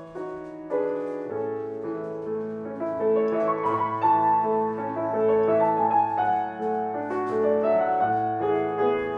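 Instrumental piano music: a slow melody of held notes moving step by step over a sustained bass line.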